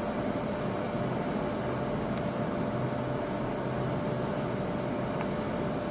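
A WAP-4 electric locomotive hauling a passenger train approaches, giving a steady hum and rumble with a steady whine.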